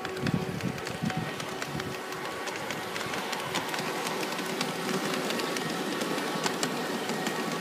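G-scale model train (Piko Taurus electric locomotive with coaches) rolling past on garden railway track: dense, rapid clicking of wheels on the rails, with a low rumble in the first two seconds as the locomotive passes close. A faint steady tone sits underneath.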